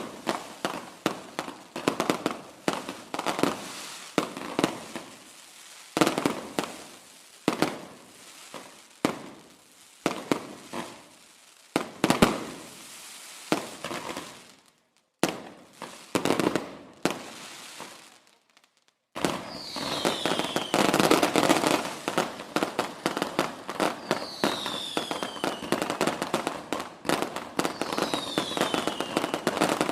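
Fireworks going off: a string of sharp bangs, each trailing into crackle. After a brief silence about two-thirds through, a denser, continuous crackling follows, with three high whistles that fall in pitch.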